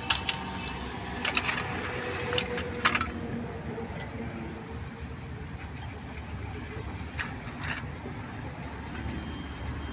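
Small metal parts clicking and clinking as they are handled inside the opened housing of a dismantled starter motor: a few short sharp clicks, bunched in the first three seconds and twice more near the end, over a steady background hum and hiss.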